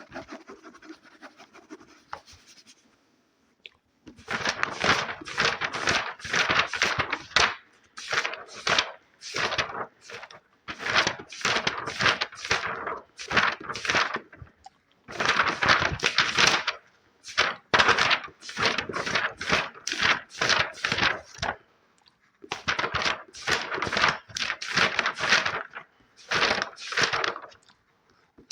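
Quick scratching strokes on an object, about three a second, in runs of a few seconds broken by short pauses, starting about four seconds in after a faint hiss.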